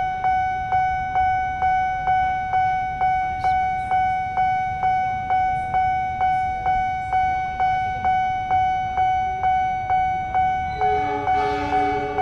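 Railway level-crossing warning bell ringing steadily, a little over two electronic dings a second, the signal that the barrier is down for an approaching train. Near the end a train horn joins in.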